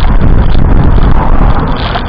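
Strong wind buffeting the microphone: a loud, unsteady, deep rumble with no pauses.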